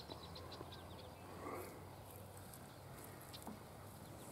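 Faint, sparse rustles and soft ticks of a North American porcupine walking over dry grass and leaves, against quiet outdoor background.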